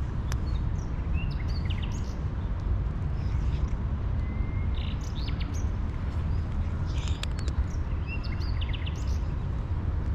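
Small birds chirping in several short runs of quick high notes, over a steady low rumble.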